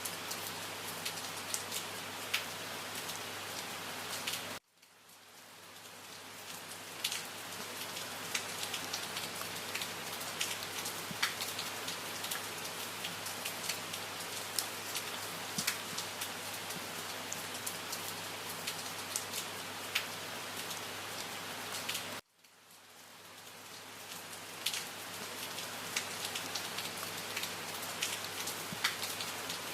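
Steady rain, with many individual drops ticking on a hard surface over an even hiss. Twice, about four seconds in and again past twenty seconds, the sound cuts out abruptly and fades back in over a couple of seconds, as at the seam of a looped recording.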